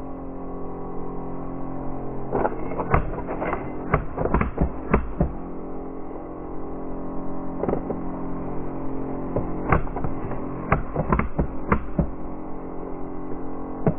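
A coin working its way down a wooden coin-bank maze, with sharp knocks and clacks as it drops onto the white plastic flaps and gates and they tip. The knocks come in two bunches, the first about two seconds in and the second in the second half, over a steady hum.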